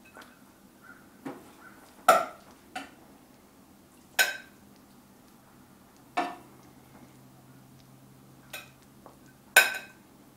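A spoon clinking and knocking against a saucepan and a plate as cooked rice is scooped out and served. There are several sharp, separate clinks a second or two apart, the loudest near the end.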